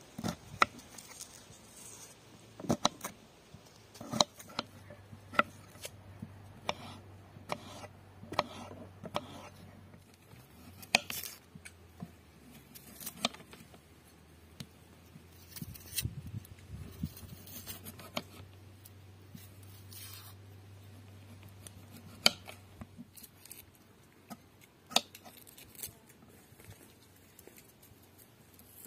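Irregular clicks and light knocks from hand food preparation with kitchen utensils, a few taps a second at most, over a faint steady low hum that stops a few seconds before the end.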